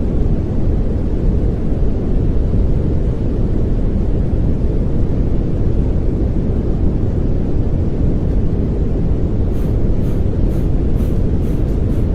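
Steady pink noise: an even, deep hiss with most of its weight in the low end. Faint high ticks come in about two seconds before the end.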